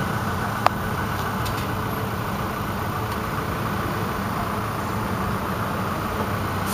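Steady motor vehicle engine and traffic noise, with a single sharp click a little under a second in.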